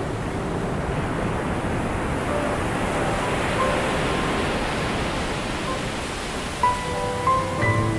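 Background music: a steady rushing wash of noise with faint scattered notes, then clear held notes come in about two-thirds of the way through as the melody begins.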